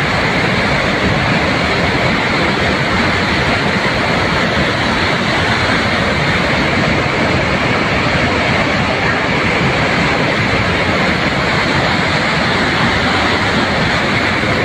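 Muddy flash-flood torrent in a mountain stream swollen by a cloudburst, rushing loudly and steadily without a break.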